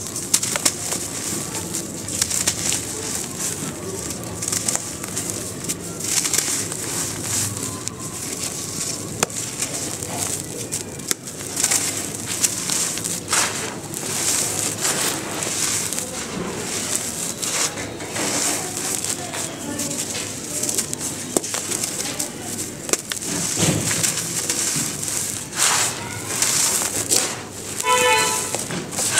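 Dry sand-cement lumps crunching and crumbling in bare hands, with the gritty hiss of dry sand and powder sifting through the fingers and many small crackling crunches.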